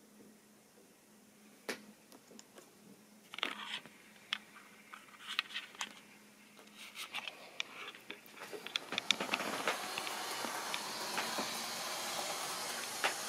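Model railway train running on the layout's track: a faint steady hum, then scattered clicks, building from about nine seconds in to a steady whirring hiss with rapid clicking of wheels over rail joints.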